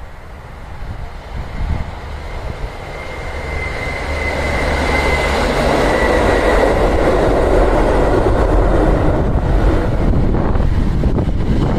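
A train approaches and runs past, growing louder over the first few seconds and then staying loud and steady, with a faint high tone in the middle.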